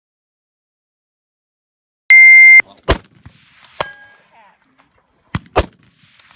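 A shot timer's loud start beep, held for about half a second, then a precision rifle shot. Under a second later comes a short ring from a hit on a steel target, and a second rifle shot near the end, preceded by a small click.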